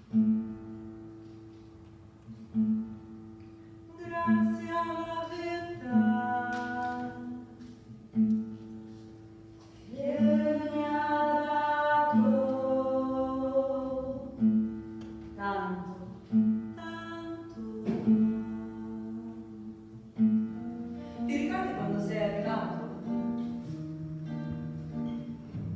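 Nylon-string classical guitar playing a repeated low plucked figure, joined about four seconds in by a woman singing a melody in phrases with short pauses between them.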